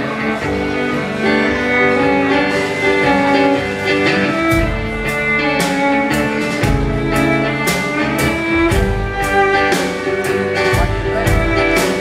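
Live band playing: bowed cello and acoustic guitar carry the tune, and a drum kit comes in about four and a half seconds in with a steady beat of cymbal strokes and kick drum.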